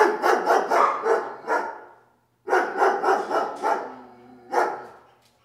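Dog barking in quick runs: a fast string of barks, a pause of about a second, a second fast string, then a single bark near the end.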